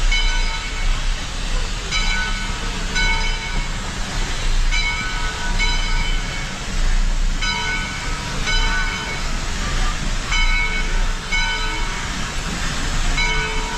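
Bell of a 1928 Lima-built Shay steam locomotive ringing, about one stroke a second, over a steady low rumble from the locomotive.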